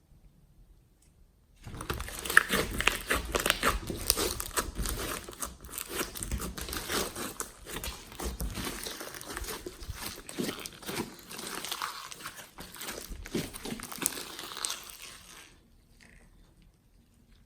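Glossy slime being squeezed and kneaded by hand: dense, wet crackling with many small clicks and pops. It starts about two seconds in and stops a couple of seconds before the end.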